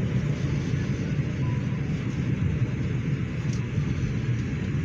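Steady low rumble of a New York City subway car, heard from inside the car as the 4 express train rolls along the platform pulling into a station.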